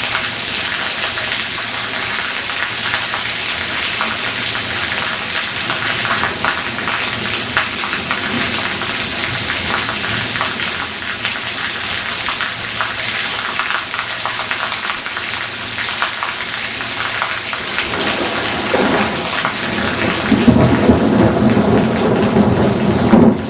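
Heavy rain pouring down steadily during a thunderstorm. A rolling rumble of thunder builds up late on and is loudest in the last few seconds.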